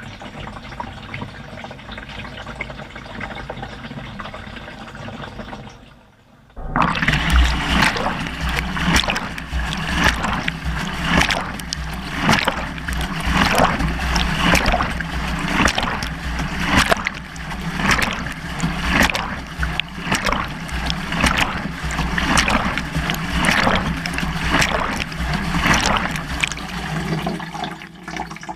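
Water sloshing and splashing inside a BEKO washing machine drum, heard from inside the drum. A steady rush of water comes first, then after about six seconds the drum starts turning and the water surges and splashes about once a second.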